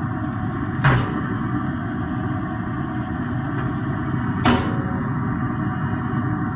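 Steady low rumble with two sharp knocks, one about a second in and another about four and a half seconds in.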